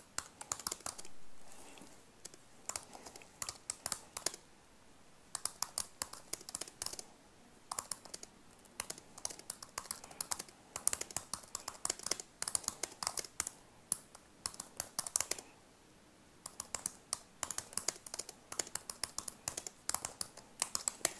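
Typing on a computer keyboard: runs of quick key clicks in bursts, with short pauses between them.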